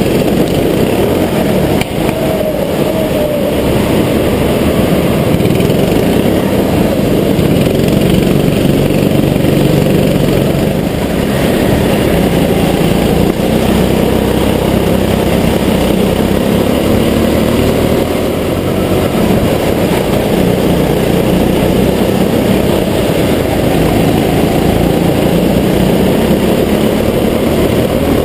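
Go-kart engine running at racing speed, heard from on board, with other karts' engines close by. The engine note rises and falls slightly as the kart drives the track.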